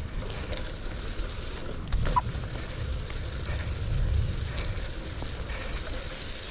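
Riding a bicycle in the rain: wind buffeting the microphone over a steady hiss of rain and wet tyres, with a brief squeak about two seconds in.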